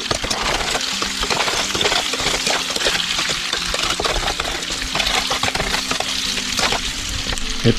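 Sliced potatoes frying in hot oil in a pan: a steady sizzle full of rapid crackling and spitting, over a low steady hum.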